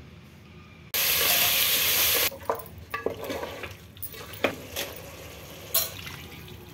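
Food sizzling in hot oil, a loud steady hiss that starts suddenly about a second in and cuts off after about a second and a half. Then a spoon stirs and scrapes chicken masala in an aluminium pot, with scattered knocks and one sharper click near the end.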